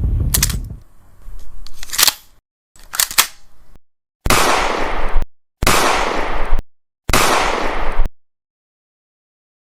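Three gunshot sound effects, each a sharp blast with a reverberant tail of about a second, fired about one and a half seconds apart. Before them come a few sharp clicks, and low music fades out at the start.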